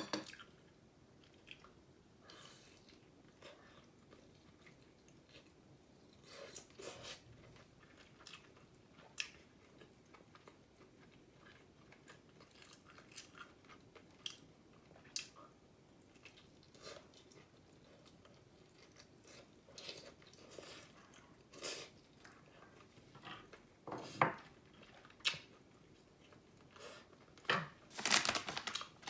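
A person chewing and biting meat off a pork rib bone, with scattered short wet mouth smacks and clicks. There are a few louder clicks near the end.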